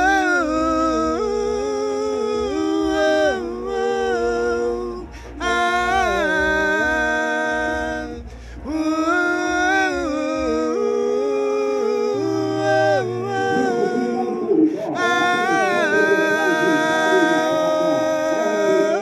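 Two men singing a cappella in two-part harmony, in long held phrases that break off briefly about five, eight and a half, and fifteen seconds in.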